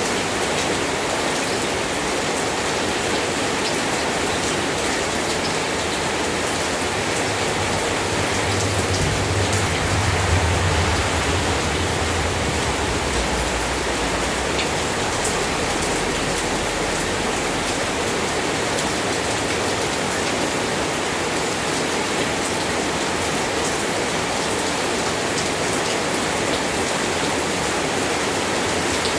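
Steady rain falling, an even hiss. A low rumble swells for several seconds about a third of the way in.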